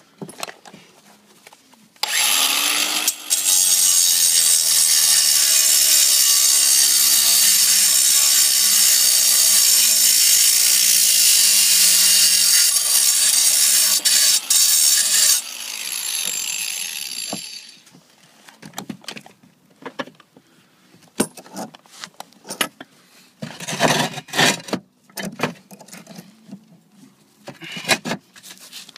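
Angle grinder cutting a notch in a roof tile so it fits over a steel roof hook, running loud and steady for about thirteen seconds with its motor pitch dipping under load, then winding down. A run of knocks and scrapes follows as the tiles are handled back into place.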